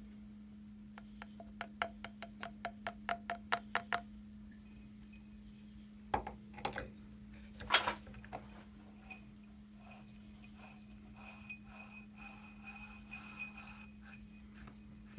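Handling and fastening sounds while fan parts are assembled: a quick run of about a dozen sharp clicks, then a few knocks, the loudest about eight seconds in, and small scattered taps. A steady low hum runs underneath.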